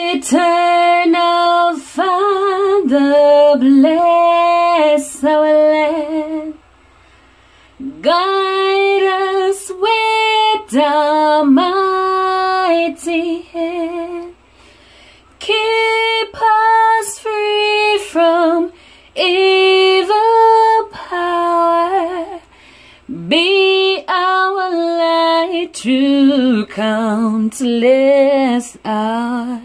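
A woman singing a melody in long held notes, phrase by phrase, with short breaks between phrases.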